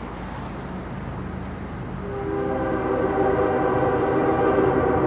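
Approaching diesel freight locomotive, its rumble growing louder; about two seconds in it sounds its air horn, several tones at once, held steady.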